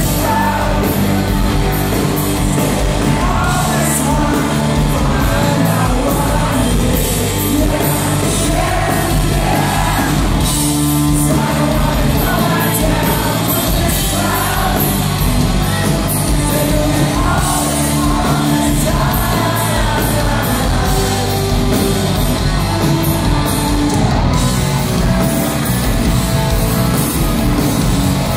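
Rock band playing live with a lead singer, guitars and drums, heard loud and steady from within the audience in a large hall.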